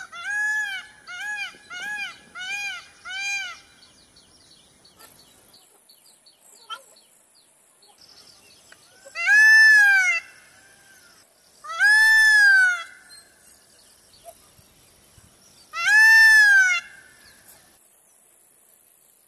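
Peacock (Indian peafowl) calling: a quick run of five short, arched calls, then three long, loud calls a few seconds apart. A faint steady high whine runs underneath.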